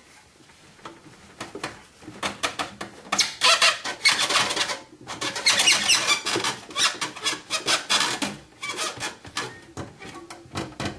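A run of quick metallic clicks and rattling as the supports holding the tilted BMW E46 six-cylinder engine are released and the engine is let down, with two louder, noisier stretches about three and six seconds in.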